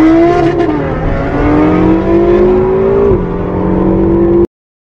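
Sports car engine accelerating hard through the gears: the pitch climbs, drops at an upshift about three seconds in, and climbs again. The sound cuts off abruptly near the end.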